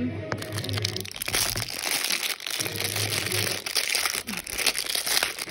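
Continuous crinkling and crackling of LOL Surprise plastic wrapping being handled and pulled open.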